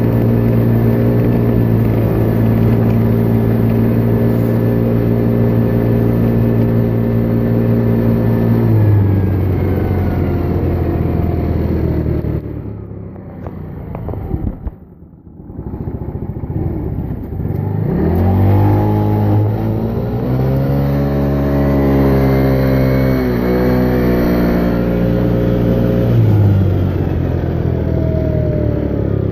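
Moped engine with a big bore kit running at a steady cruise, then dropping in pitch and easing almost to idle about halfway through, then revving up again to a steady speed before easing off once more near the end. The big bore kit makes it louder than a stock moped.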